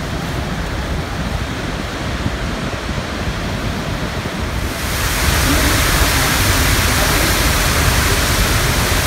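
Rushing water of Niagara Falls: a steady, loud noise that jumps louder and brighter about five seconds in.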